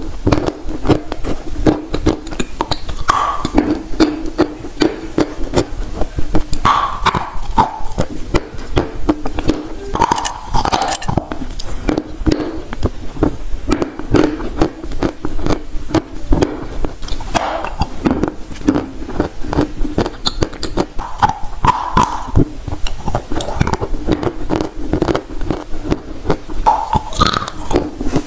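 Close-miked biting and chewing of dry chunks of edible Turkestan clay: a dense, steady run of crunching crackles, with mouth sounds every few seconds.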